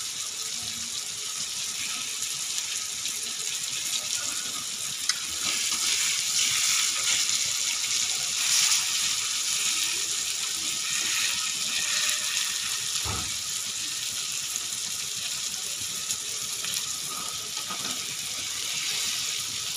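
Green chillies sizzling in hot oil in a steel kadai while a spatula stirs them; the sizzle swells for several seconds in the middle. A single knock comes about 13 seconds in.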